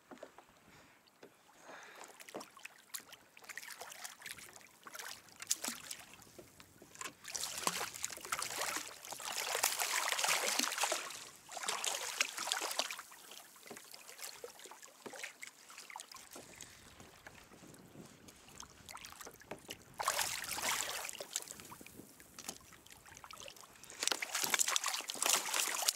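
Water splashing and sloshing against a kayak hull as a hooked carpet shark is brought up to the surface alongside. The splashing comes in uneven spells, louder about eight seconds in, again about twenty seconds in, and near the end, when the shark thrashes at the side of the kayak.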